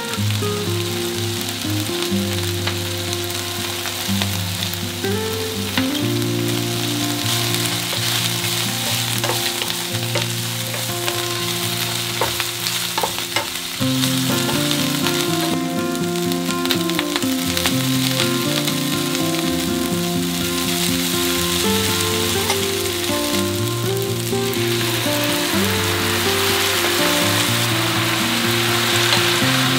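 Chicken, tofu and shallots sizzling in hot oil in a nonstick frying pan as they are stirred with a wooden spatula. The sizzle gets louder about halfway through, and again near the end, as rice noodles and shrimp are added. Soft low background music plays underneath.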